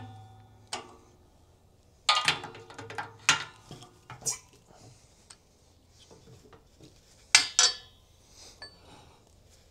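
Steel riveting-jig tooling and a stamped AK receiver clanking and clinking against the press plate as they are handled and repositioned. The knocks come one at a time with a brief metallic ring, and the loudest comes about three-quarters of the way through.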